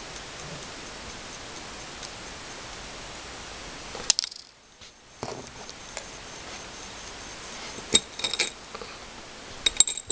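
Light clinks and rattles of small beads and pearls against a clear glass dish and plastic bead jars as they are picked through: a few sharp clicks about four seconds in, a couple more later, and a cluster of ringing clinks near the end, over a steady low hiss.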